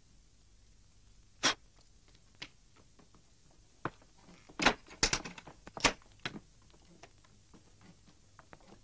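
A wooden door being shut and locked: scattered knocks and clicks, with a cluster of louder bangs and rattles about five to six seconds in.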